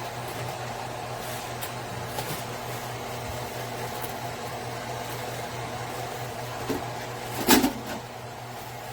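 Steady hum of an electric ceramic hob's cooling fan running, with a sharp knock about seven and a half seconds in and a smaller one just before it.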